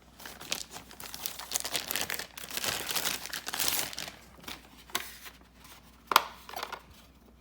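Packaging crinkling and rustling as it is handled for about four seconds, then a few light clicks and one sharp click about six seconds in.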